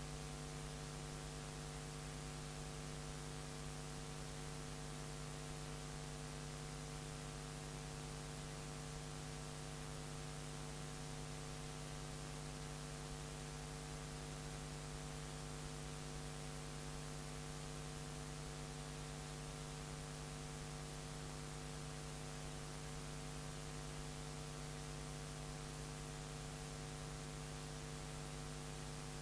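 Steady electrical mains hum with a layer of hiss.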